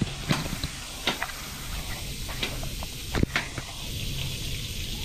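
Meat and vegetable pieces sizzling in a hot wok as they are stirred, with a metal spoon clinking and scraping against the pan several times.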